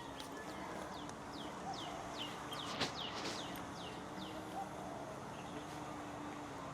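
A bird singing a quick run of about ten downward-slurred chirps over roughly three seconds, with one sharp click partway through.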